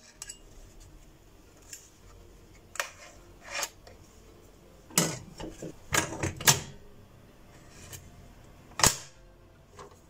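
A string of irregular sharp clicks and knocks, clustered about five to seven seconds in, with one loud knock near the end.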